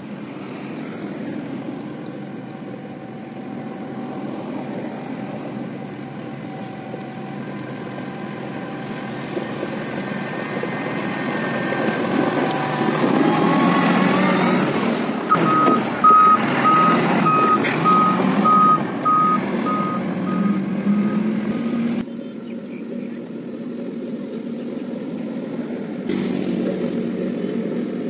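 Motor grader's diesel engine running as the machine approaches and passes close by, loudest around the middle. Just past the middle a reversing beeper sounds a steady series of beeps, about two a second, for several seconds.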